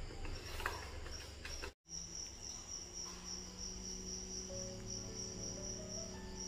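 Crickets chirping in a steady, pulsing high trill, broken by a brief dropout about two seconds in. Soft sustained music notes come in beneath it after the dropout.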